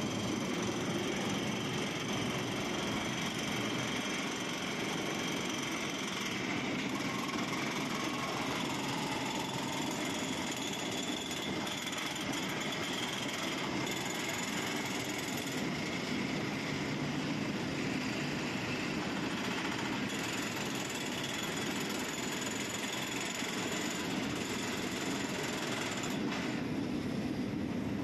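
Blast furnace taphole drilling machine working steadily, its drill hammering into the taphole with a continuous rapid rattle.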